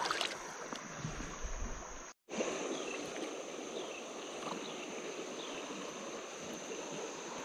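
River water flowing in a steady rush, with a steady high insect trill above it. The sound cuts out completely for a moment about two seconds in, then the same water and insect sound resume.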